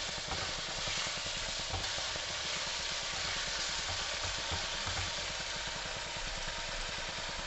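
Chopped tomatoes with spices frying in a kadai: a steady sizzle, with the light scrape and tap of a slotted spatula stirring them.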